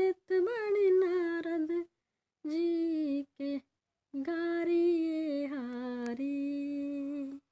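A woman's unaccompanied voice carrying a Kajari folk melody in long held notes, with no instruments. It drops out abruptly to silence a few times and stops just before the end.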